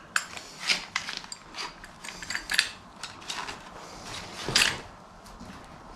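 A metal bar clamp being handled: irregular clicks and light clatter, the loudest knock about four and a half seconds in.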